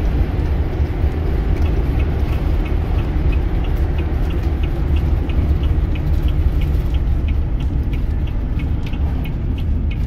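Steady engine and road rumble heard inside the cab of a Chevy 4500-chassis Class C motorhome driving at road speed. From about a second and a half in, a turn-signal flasher ticks evenly, about three times a second.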